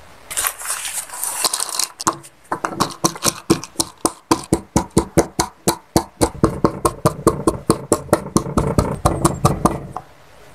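A pestle pounding roasted peanuts in a white plastic mortar to crush them: a steady run of sharp knocks, about five a second. It starts about two seconds in, after a brief rustle, and stops just before the end.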